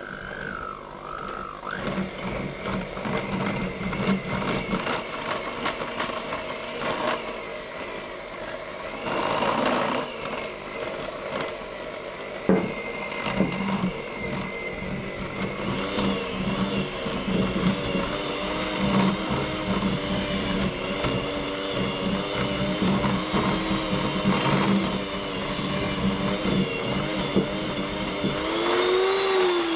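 Electric hand mixer whisking icing made of egg white, icing sugar and lemon juice. Its motor runs steadily and winds down near the end.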